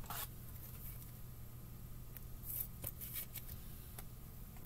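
Faint handling of trading cards: a few brief soft brushes and slides as cards are moved on the table, over a low steady hum.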